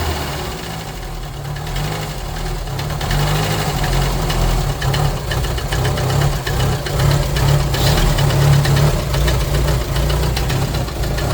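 1977 Ford Corcel Belina I's four-cylinder engine idling while it warms up after a cold start, run without a choke because its choke cable is missing. A steady low engine note with a fast light ticking over it from about four seconds in.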